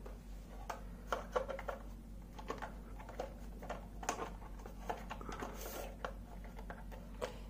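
Small plastic clicks and knocks, irregularly spaced, as a three-pin mains plug and its cables are handled and pushed into a wall switchboard socket.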